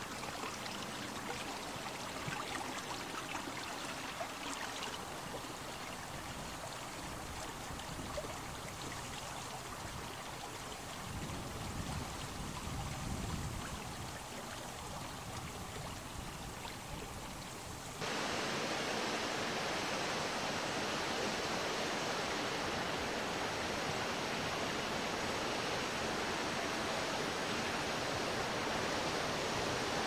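Steady rush of flowing river water, jumping suddenly louder about two-thirds of the way in.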